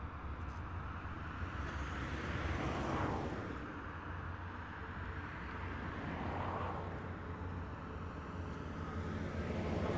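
Heavy military vehicles driving past one after another, their engines droning steadily. About every three seconds one swells and drops in pitch as it goes by.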